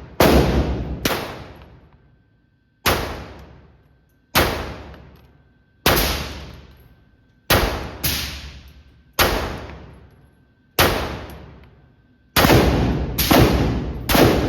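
Glock 25 pistol in .380 ACP firing about a dozen single shots at a steady pace, a second or two apart, with a quicker string of shots near the end. Each shot trails off with echo.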